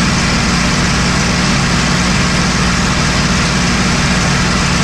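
Steady aircraft engine drone and rushing airflow heard from inside a cockpit in flight: a constant low hum under an even hiss.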